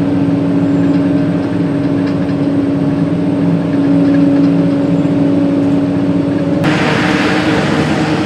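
Heavy diesel machinery running steadily with a strong, even drone. About two-thirds of the way through, the sound changes abruptly and a loud hiss joins the drone.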